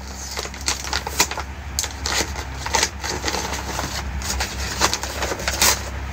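Gift wrapper crinkling and rustling as it is handled and opened by hand, in irregular sharp crackles, over a steady low hum.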